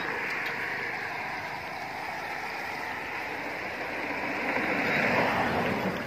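Swift floodwater rushing and churning past a concrete edge: a steady rush of water that grows a little louder near the end.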